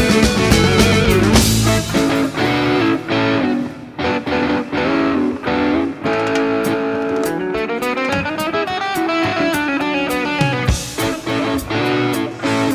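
Background music: guitar-led music with a drum beat.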